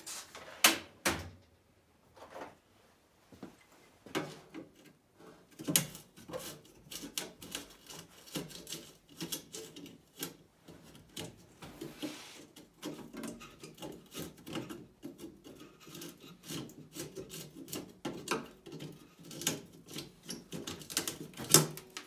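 Flathead screwdriver working the mounting screws of a Land Rover Series 2A headlight trim ring on a steel grille panel: irregular small metal clicks, taps and scrapes. There is a louder metal clack near the end as the ring is lifted off.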